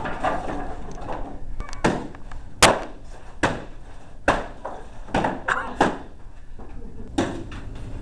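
Makeshift swords and shields whacking against each other in a mock sword fight: about eight sharp hits, irregularly spaced, most of them a second or less apart. A voice is heard briefly at the start.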